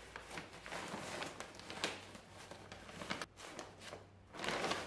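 Brown paper filter bag rustling and crinkling as it is worked down over a cloth filter sock by hand, with a louder stretch of rustling near the end.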